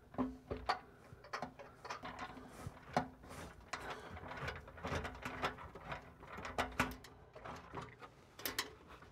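Screwdriver turning out the long threaded screws of a sink's under-counter mounting clips: a run of small, irregular metal clicks and scrapes.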